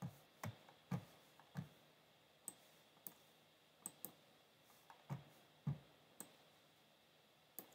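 About a dozen light, sharp clicks at uneven intervals, each with a soft low thump, over near silence.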